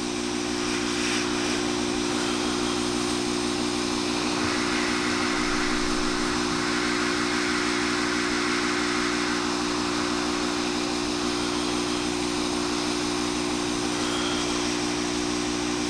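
Sparkfun hot air rework station blowing hot air steadily from its nozzle onto a connector's solder joints: an even hiss with a low, steady hum beneath it.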